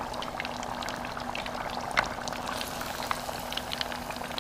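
Beer-battered sturgeon chunks deep-frying in hot oil: a steady sizzle dotted with many small pops and crackles, with one sharper click about two seconds in. The chunks are golden brown and done.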